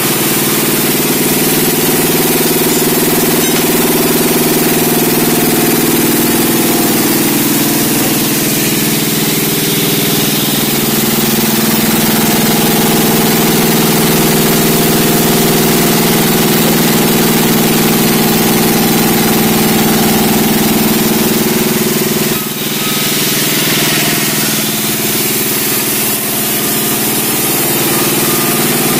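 Engine-driven sawmill running steadily: a constant engine drone over a hiss, dipping briefly about 22 seconds in.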